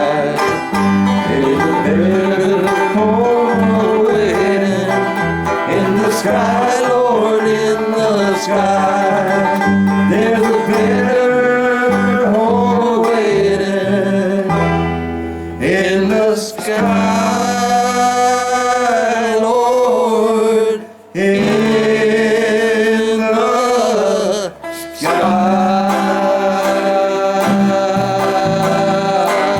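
Country-style song with plucked banjo and guitar and a singing voice over a steady beat, with two brief breaks in the music about two-thirds of the way through.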